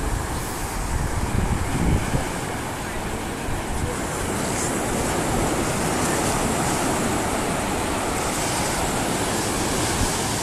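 Ocean surf washing onto the beach, with wind buffeting the microphone in low rumbling gusts during the first couple of seconds.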